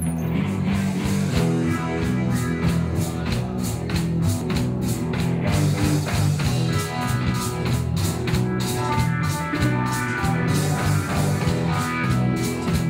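Live rock band playing an instrumental intro: electric guitar with bass and a drum kit keeping a steady beat.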